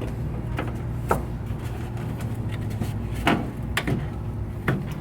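Scattered sharp knocks and clatter, about five in all, from hands and tools working at a frozen vending machine cooling deck, over a steady low hum.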